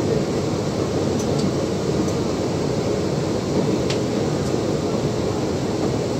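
Steady cabin noise of an electric commuter train (KRL) rolling along the track, with a few faint clicks, the clearest about four seconds in.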